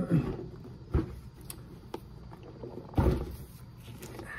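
Hard plastic toy-car carrying case being handled and set down on a table: a few short knocks and thumps, the heaviest about three seconds in.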